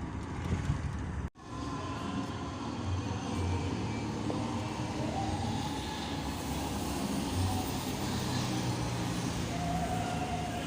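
Road traffic: a steady rumble of vehicles, broken by a short dropout about a second in, with two faint brief tones that could be distant horns.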